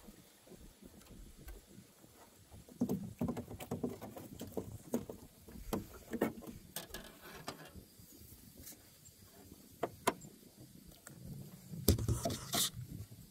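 Scattered knocks, clicks and scrapes of fishing gear being handled, heaviest a few seconds in and loudest near the end as the rod passes close by.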